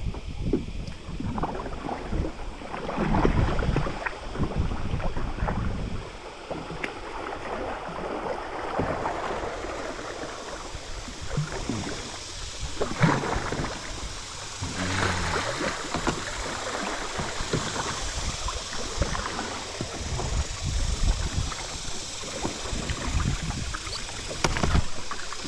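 River water rushing and lapping around a small kayak drifting down a current, with uneven louder surges and splashes.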